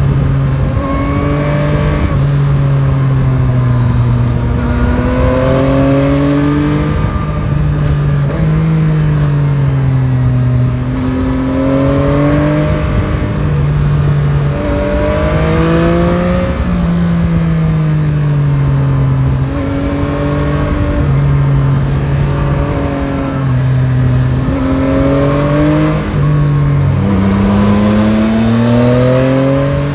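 Yamaha Tracer 9 GT's three-cylinder CP3 engine pulling through the gears: its pitch repeatedly rises with the throttle and falls away, with several abrupt jumps in pitch as gears change. A steady rush of wind lies underneath.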